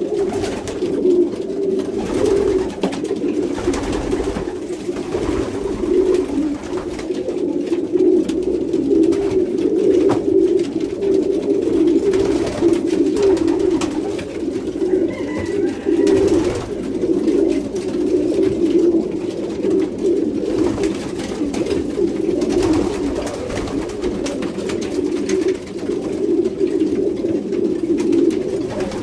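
Many domestic racing pigeons cooing at once in a small loft, a continuous overlapping chorus of low warbling coos. It is the courtship cooing of a flock during free pairing.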